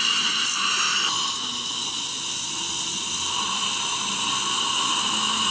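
Surgical implant handpiece drilling into jawbone under saline irrigation: a steady high whine with hiss, changing slightly about a second in.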